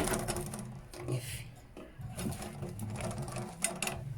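Metal ammo box being handled and its latched lid worked open, with a sharp click at the start and several short metallic clicks near the end.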